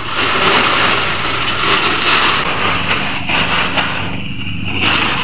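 A small engine running steadily, with water and fish splashing as a net scoops through a boat's fish hold in the first few seconds.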